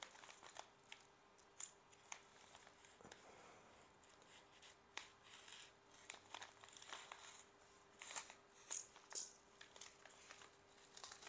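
Faint crinkling and scattered short crackles of a black plastic bubble mailer being slit open with a utility knife and handled.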